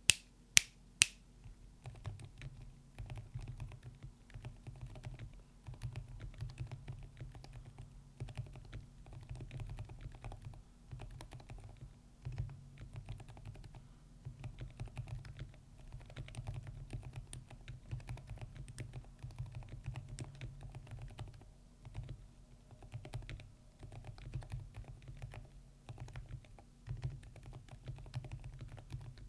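Typing on a tape-modded Cidoo Finalkey V65 mechanical keyboard with Gecko Silent Linear switches and GMK-style keycaps: a steady stream of quick, muted key strokes with a deep bottom-out. Two sharp, much louder clicks come about half a second and one second in, before the typing starts.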